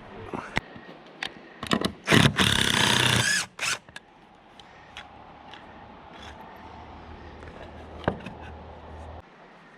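A handheld power drill runs in a loud burst of about a second, among scattered knocks and clicks of work. It is followed by a steady low hum that cuts off near the end.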